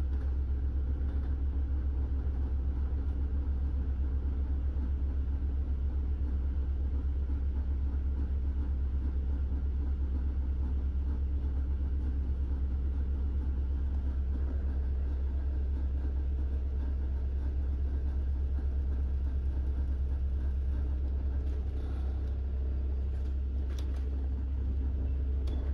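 Double-decker bus heard from inside its upper deck: a steady low engine and road rumble as the bus drives slowly along, with a few faint clicks near the end.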